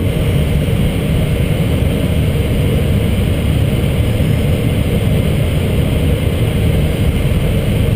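Steady flight-deck noise of an Airbus A320 on final approach: a low rumble under an even hiss of air and engines, with no sudden events.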